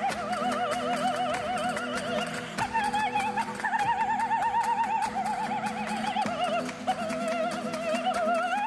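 High operatic soprano voice holding sustained notes with a wide, heavy vibrato, a wobble about five or six swings a second, over steady accompaniment. Near the end the voice rises in pitch. Frequent faint clicks sound in the background.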